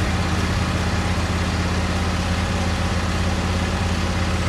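Husqvarna YTH22V46 riding mower's V-twin engine running steadily at a low, even speed.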